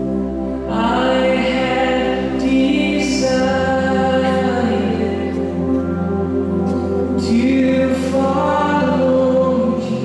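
Live band playing a slow worship song: held keyboard chords, with singing coming in about a second in.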